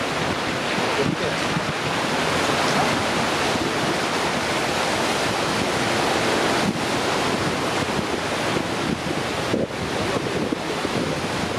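Ocean surf washing steadily on the shore, with wind buffeting the microphone.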